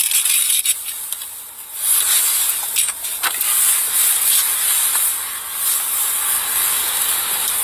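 Steady loud hiss of rushing air inside a car cabin, with a few faint clicks.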